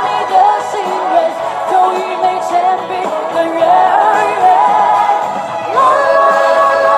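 Background music: a song with a voice singing a melody over steady accompaniment.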